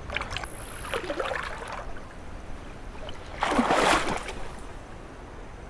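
Shallow river water splashing and sloshing as a hand lets a fish go and the angler moves through the water, with one louder splash about three and a half seconds in.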